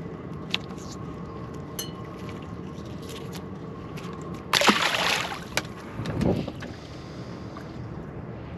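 A dogfish thrown back overboard: a loud splash about halfway through, then a duller splash about a second later, over a steady low hum.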